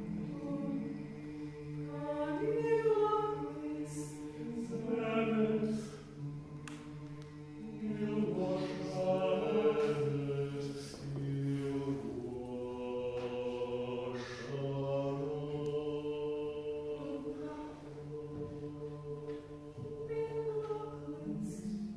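Mixed-voice chamber choir singing a cappella: low voices hold long steady notes while the upper voices move above them in phrases that swell and fade.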